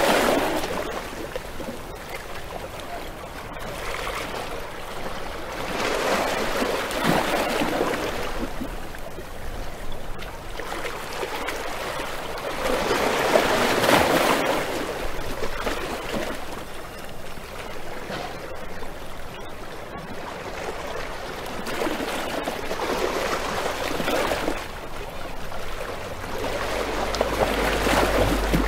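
Rushing water: a steady hiss that swells and eases in slow surges every several seconds. Near the end a low steady tone comes in underneath.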